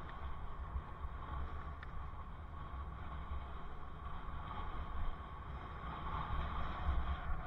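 Wind rumbling unevenly over a helmet-mounted camera's microphone on a moving bicycle, under a steady hiss of riding noise.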